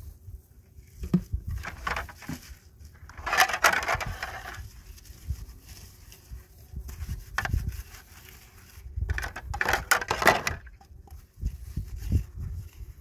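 Irregular crunching and rustling handling noises, with two longer, denser bursts about three seconds in and again about nine seconds in.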